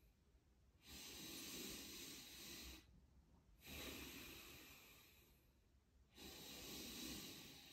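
A person breathing slowly and faintly in a steady rhythm, as in chi gung breathing: about three long breaths, each a soft hiss of around two seconds with a short pause between them.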